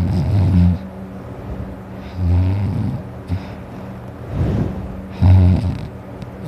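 A sleeping man snoring loudly: four rough, low snores, each under a second long and about one to two seconds apart, over a steady low hum.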